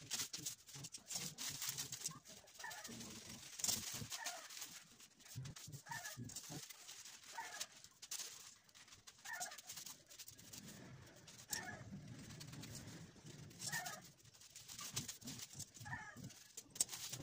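Thin kite paper rustling and crinkling in short, irregular bursts as it is folded and pressed flat by hand. Short bird calls repeat every second or two in the background.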